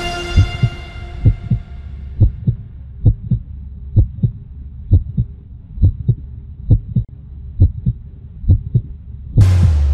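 Orchestral trailer music fading out, then a slow heartbeat sound effect: pairs of low thumps a little under a second apart over a faint hum. Near the end a sudden loud whoosh and boom hits, leaving a deep rumble.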